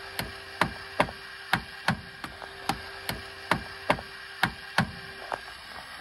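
A wrench clicking on a car battery terminal clamp as the clamp nut is worked: sharp metal clicks, about two to three a second, stopping near the end.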